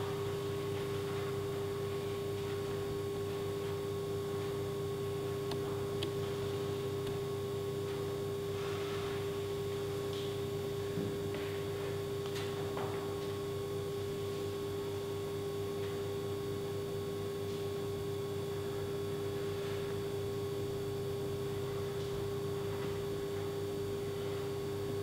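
A steady electrical-sounding hum holding one constant tone, with a few faint taps and scuffs from climbing on steel pallet racking.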